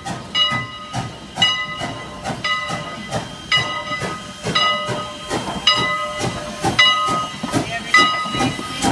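Canadian National 89 steam locomotive drifting into the station. Its bell rings about once a second over a steady hiss of steam and soft pulsing from the engine.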